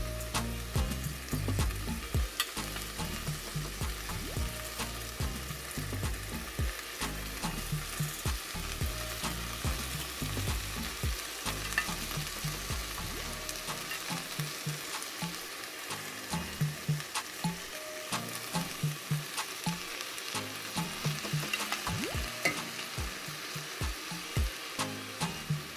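Food sizzling in oil in a cooking pot while being stirred, with frequent sharp clicks of a utensil against the pot.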